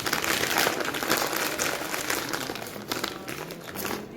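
A packet of rock sugar crinkling as it is handled, a continuous crackling rustle.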